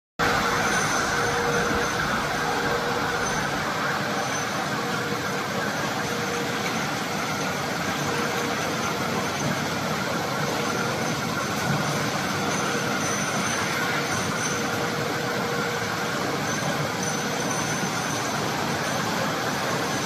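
Glass jar washing line running: a steady mechanical noise from the jar conveyors and the tunnel washer, with faint high tones that come and go.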